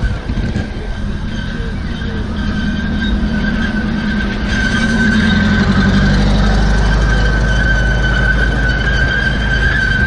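Ride-on miniature park train pulling past: the locomotive's engine rumbles, louder from about four and a half seconds in as it draws alongside. A steady high metallic squeal from the train's wheels on the rails runs under it.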